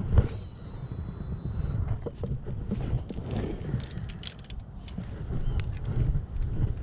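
Uneven low rumble of wind buffeting the microphone, with scattered light clicks and taps.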